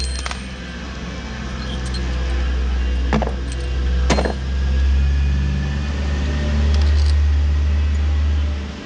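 A steady low rumble, with two sharp metallic clicks from hand work on the broom attachment's fittings about three and four seconds in.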